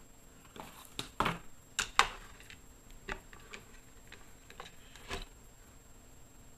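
Scattered clicks and taps of a small plastic dish being set on a digital pocket scale and handled, the loudest about two seconds in, then lighter taps.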